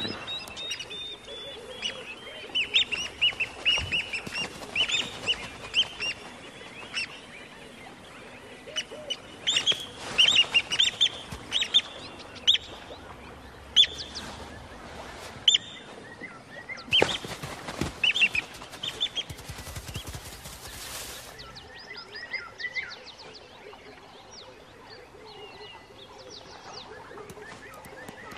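Plover giving sharp, high alarm calls in repeated clusters, the defensive calls of a bird mobbing a monitor lizard near its eggs. A short burst of hiss-like noise comes about twenty seconds in.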